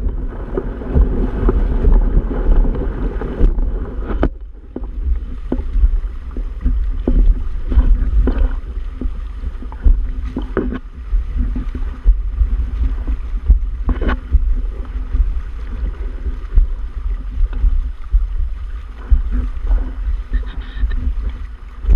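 Water rushing and splashing along the hulls of a Hobie Tandem Island sailing kayak under sail, over a heavy low rumble of wind buffeting the microphone. There are a few sharp slaps, at about 4, 10 and 14 seconds in.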